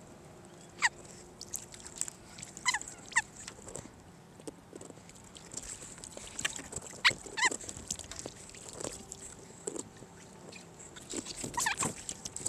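Short calls from birds, each a quick downward sweep in pitch, coming irregularly: a few at first and a cluster near the end.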